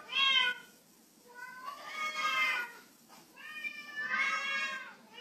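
A cat meowing three times: a short meow, then two long, drawn-out meows.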